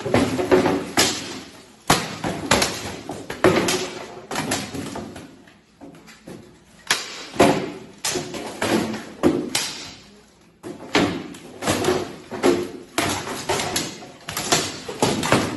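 Swords striking shields and steel plate armour in a bout between two armoured fighters: a rapid, irregular string of sharp clanks and thuds, easing off briefly about five and ten seconds in.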